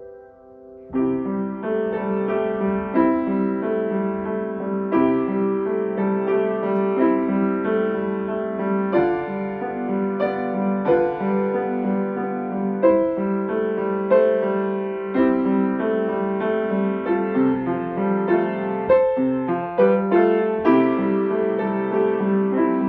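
Solo grand piano playing. A held chord dies away, then a steady run of notes starts up about a second in and carries on.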